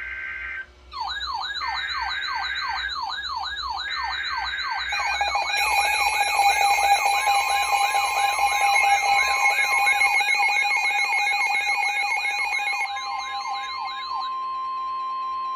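Emergency Alert System alert opening: three short buzzy data bursts of the SAME header, overlaid by a siren wail rising and falling about twice a second. A steady alarm tone joins partway through and carries on alone after the wail stops near the end.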